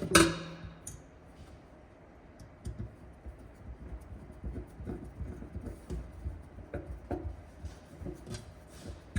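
A sharp metallic clank at the start, then a run of light, irregular clicks and knocks as the fuel tank sender unit is fitted against its seal in the tank.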